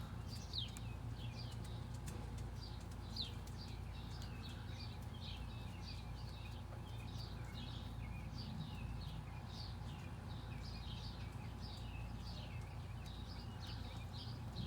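Birds chirping in quick, repeated short calls over a steady low rumble, with two faint clicks about half a second and three seconds in.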